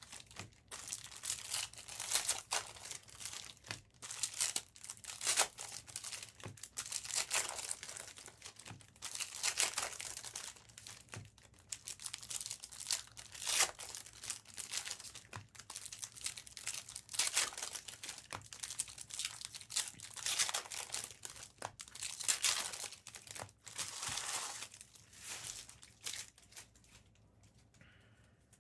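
Plastic packaging crinkled and torn by hand in irregular bursts, dying away near the end.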